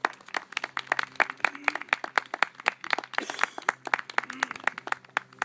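Hand clapping: a fast, steady run of sharp, loud claps, about six a second, that starts suddenly and stops just before the end.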